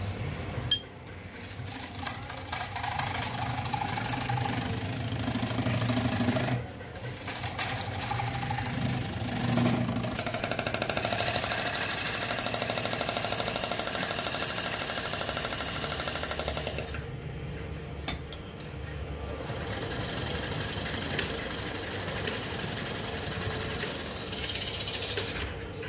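Belt-driven wood lathe spinning a large wooden disc while a hand-held gouge cuts into its face: a steady scraping hiss from the tool over the low hum of the electric motor. The cutting noise drops out briefly a few times.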